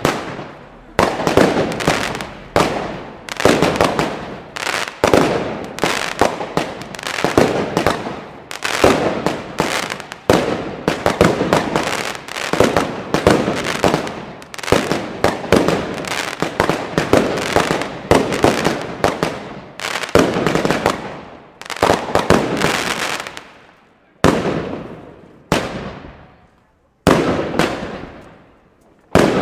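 Ground-fired fireworks going off: a fast string of sharp bangs, more than one a second, each trailing off as the shots burst overhead. Near the end the firing thins out to single bangs about a second and a half apart.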